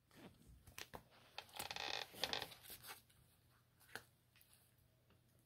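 Beagle puppy chewing and tugging at a paper tag on a plush toy: faint paper crinkling and rustling in short bursts, with a few small clicks.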